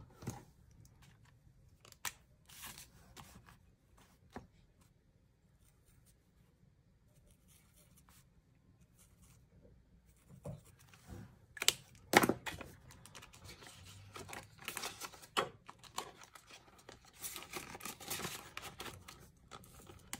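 Rustling and crinkling of clear plastic binder pouches and paper sheets being handled, in scattered bursts with a quieter stretch in between and a few sharp clicks a little past the middle.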